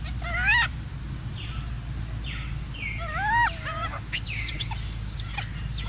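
Baby macaque giving short high-pitched squealing calls that rise and fall in pitch, one about half a second in and a longer one around three seconds in, over a steady low hum.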